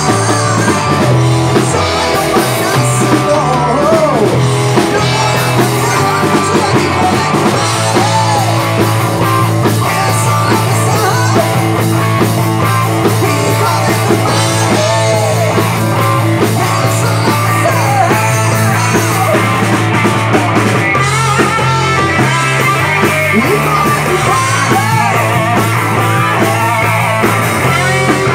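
Rock band playing live: electric guitars, bass and drum kit, with a male singer's voice at times.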